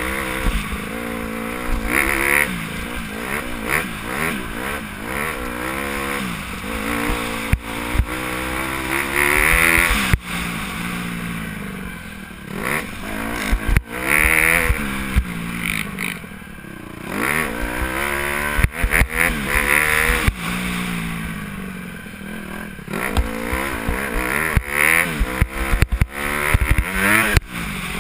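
Motocross dirt bike engine revving up and down repeatedly as it is ridden round the track, the pitch climbing and dropping every couple of seconds with shifts and throttle changes. Sharp knocks and clatter come through often.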